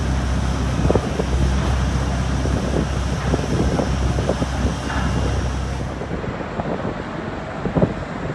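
Airport apron noise beside a parked airliner: a steady low hum under a high hiss. About six seconds in it gives way to quieter terminal interior sound with a few light knocks.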